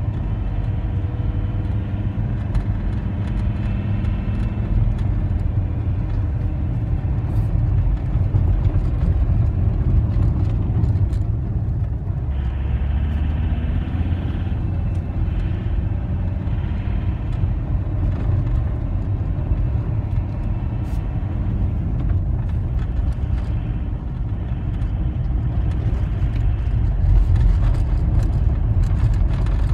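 Cabin noise of a car driving on a snow-covered road: a steady rumble of engine and winter tyres on packed snow, with scattered faint clicks.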